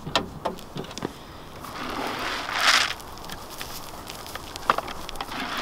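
Crisp crunching clicks of a red deer stag chewing sugar beet pellets, with a short rushing hiss about halfway through and one sharp click near the end.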